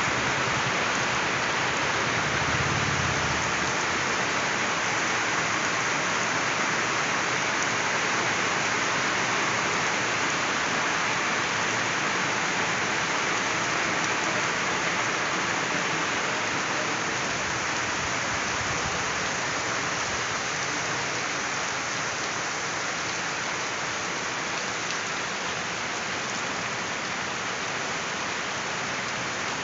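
Steady rain falling on a surface: a dense, even hiss of drops that eases off very slightly toward the end.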